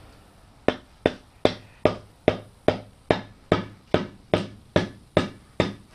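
Rubber mallet striking a double-bit axe head, driving it down onto its Osage orange handle to seat it. A steady run of about thirteen knocks, roughly two and a half a second, starting about a second in.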